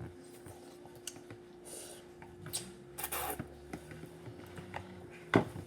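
Scattered light clinks and knocks of dishes and cutlery being handled, with a sharper knock near the end, over a steady faint hum.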